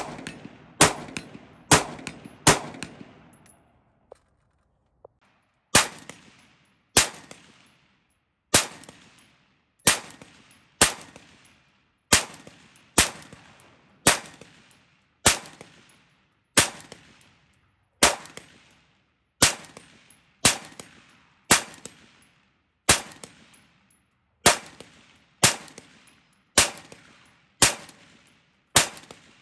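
AR-15-pattern rifle firing semi-automatic: a quick string of about five shots, a pause of about three seconds, then shots at roughly one a second, each a sharp crack with a short fading tail.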